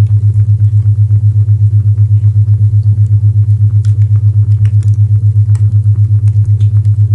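A loud low-pitched isochronic tone, a hum pulsing on and off about seven times a second, with a faint fireplace crackle beneath it.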